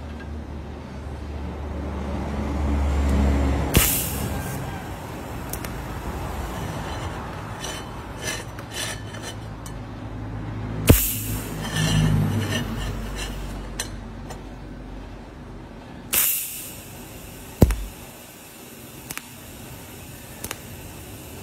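TIG welding torch tacking a stainless steel exhaust tip: three short hissing arc bursts that start suddenly and fade over about a second, with sharp clicks and light metal chinks between them.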